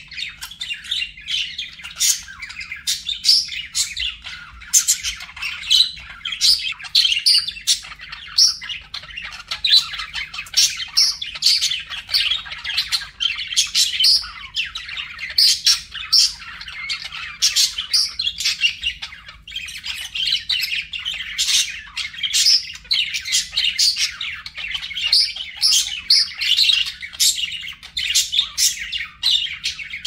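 Budgerigars chattering without a break, a dense warble of overlapping chirps with many sharp squawks.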